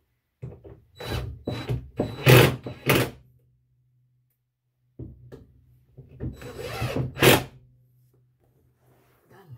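Cordless drill driving screws into a cabinet, in two runs of about three seconds each, its motor humming steadily under the noise of the screw biting.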